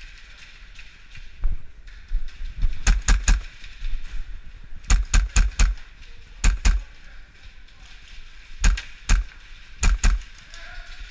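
Airsoft guns firing in short, quick strings of two to four sharp cracks, with pauses of a second or two between strings.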